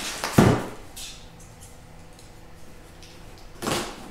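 A sharp knock about half a second in, then a few light taps and a scraping rustle near the end: a heavy cardboard box of metal parts being set down and opened.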